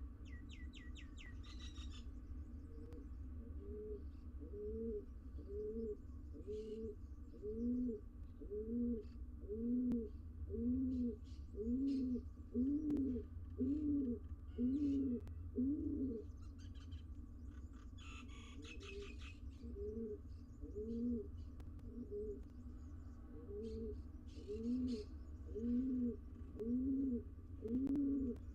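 Pigeon cooing on top of the nest box: a long run of rounded coos, about three every two seconds, with a short break about two-thirds of the way through. Twice, near the start and past the middle, a brief rapid high-pitched trill cuts in, over a steady low hum.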